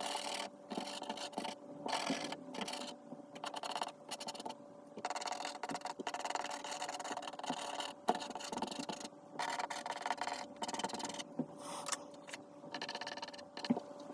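Soft pastel chalk rubbing and scratching across Clairefontaine Pastelmat paper in short, repeated strokes with brief pauses between them, over a faint steady hum.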